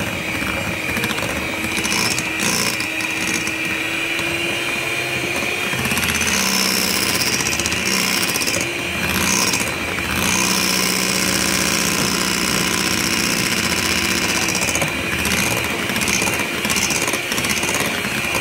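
Electric hand mixer running steadily, its twin beaters whipping eggs, sugar and emulsifier into a thick cake batter.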